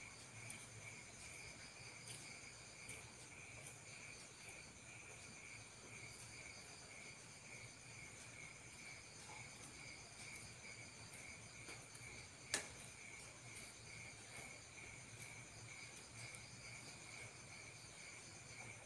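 Faint, steady chirping of crickets at night, continuous and without a break, with one sharp click about twelve and a half seconds in.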